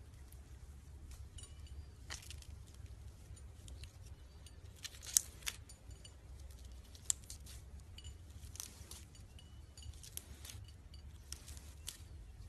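Slime being pressed and handled: scattered small sticky clicks and crackles with a few sharper snaps, over a low steady hum.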